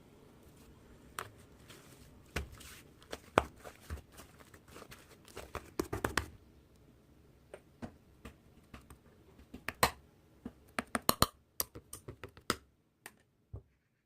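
Irregular sharp clicks and taps, some louder than others, over faint room noise. The room noise cuts off abruptly near the end, leaving a few fainter clicks.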